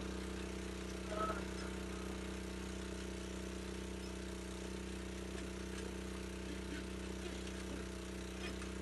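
A small engine running at a steady speed, an even low drone that does not change, most likely the engine-driven pump that circulates water down the borehole drill pipe.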